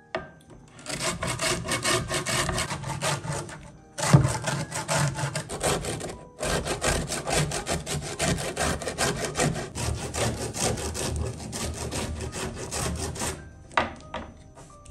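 Orange peel being grated on a flat stainless steel grater: quick rasping strokes in three long runs, with short pauses about four and six seconds in. A sharp knock at the start of the second run is the loudest moment.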